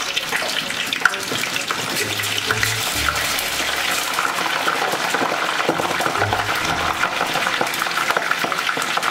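Frozen French fries poured into a pot of hot oil on the stove, the oil sizzling steadily with dense, fine crackling as they fry.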